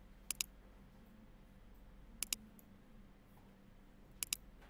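Computer mouse button clicked three times, each a quick double tick, about two seconds apart, over a faint steady hum.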